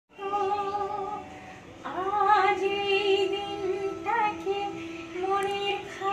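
A woman singing unaccompanied, holding long, steady notes with slides between them.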